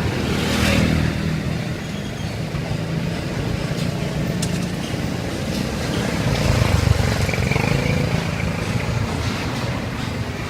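Street traffic: motor vehicle engines, motorbikes among them, running and passing steadily, with a brief hiss about a second in.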